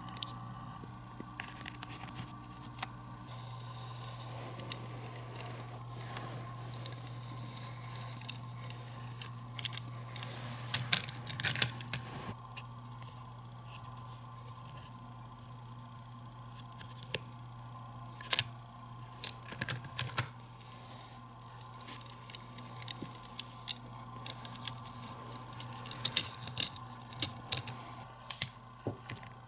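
Plastic toy playset pieces and packaging being handled: scattered sharp clicks, taps and rustles that come in clusters about ten seconds in, again around eighteen to twenty seconds, and near the end, over a steady low hum.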